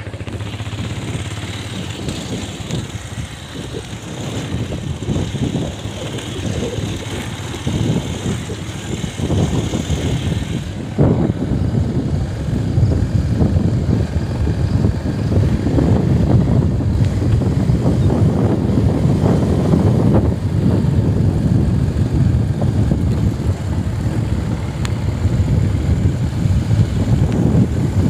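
Motorcycle on the move: a steady engine-and-road rumble with no clear engine pitch, getting louder about eleven seconds in.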